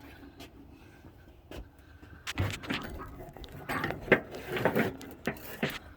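Light metallic clicks and rattles of parts or tools being handled, starting a little over two seconds in and going on irregularly.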